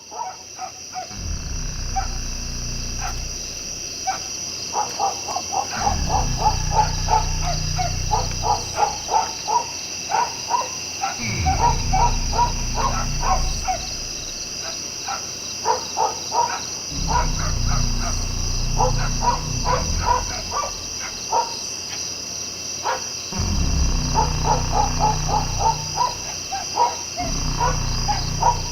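A low rumbling drone that comes in stretches of a few seconds and breaks off between them. Under it run rapid runs of short chirping calls and a steady high-pitched whine.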